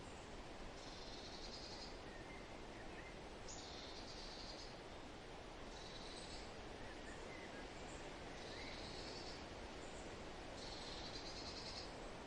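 Forest birds singing over a steady rush of wind. A short, high song phrase comes five times, roughly every two and a half seconds, with a few fainter, lower chirps in between.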